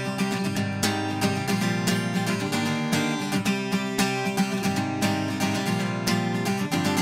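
Background music: a strummed acoustic guitar playing steady chords, with no singing yet.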